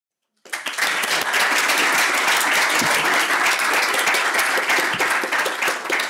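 Audience applauding, cutting in suddenly about half a second in and then clapping at a steady level.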